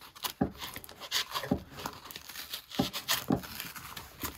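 A folding knife slitting the packing tape and paper of a padded mailer, in a few short, sharp scraping strokes with crinkling of the envelope.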